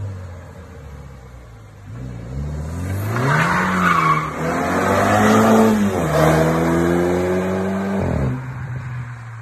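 BMW 330i G20's turbocharged four-cylinder revving hard while the car drifts, tyres squealing. The engine pitch climbs about two seconds in, dips, climbs again and holds high, then drops off near the end.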